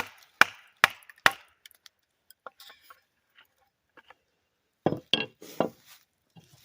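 Sharp wooden knocks from striking wood to drive a split through a beech log: four quick blows about half a second apart, a lull with faint small clicks and creaks of the splitting wood, then three heavier blows close together near the end.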